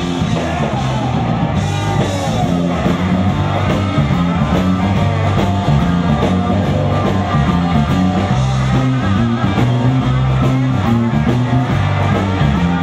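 Rock band playing: electric guitar and bass guitar over a steady beat, with a man singing.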